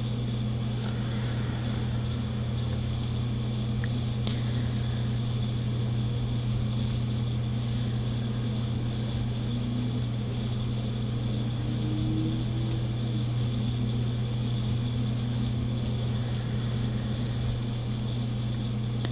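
Steady low hum with a faint high whine above it, unchanging throughout. Any sound of the crochet hook and yarn is lost under it.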